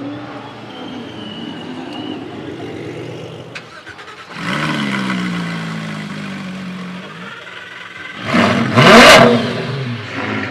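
Sports car engines. About four seconds in, one revs up and winds down with a falling pitch. Near the end, a louder one accelerates hard and sweeps up and down in pitch, the loudest moment.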